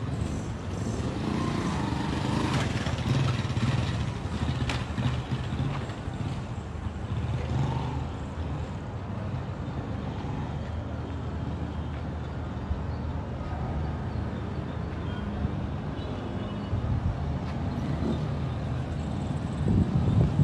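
A motor engine running steadily as a low hum, with outdoor street noise over it and a brief louder swell near the end.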